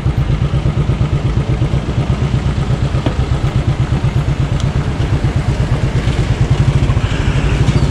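Motorcycle engine running steadily, its exhaust beat a rapid, even pulsing.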